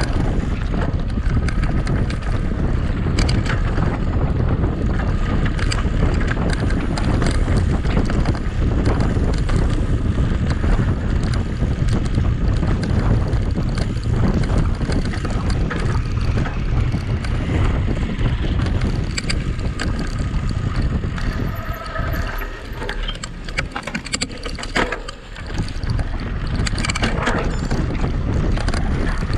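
Wind buffeting the microphone of a camera riding on a mountain bike at race pace, with a steady rumble of tyres and frequent clicks and rattles from the bike over rough ground. The rumble eases briefly about three-quarters of the way through.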